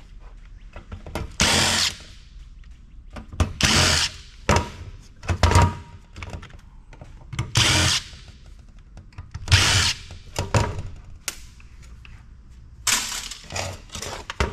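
Cordless power driver backing screws out of an IDE hard drive's case. It runs in short bursts of about half a second to a second, one every second or two, with small clicks of screws and metal parts in between.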